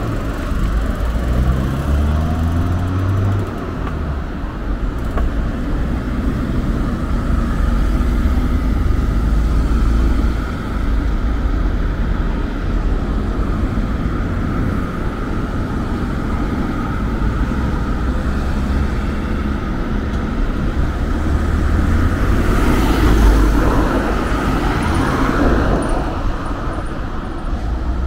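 Road traffic: cars and other motor vehicles running along the road, with engine pitch rising and falling near the start and one vehicle passing close about two-thirds of the way through.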